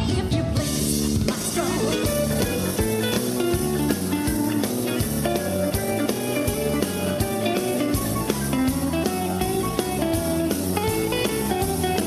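Upbeat dance music with guitar and drum kit keeping a steady beat.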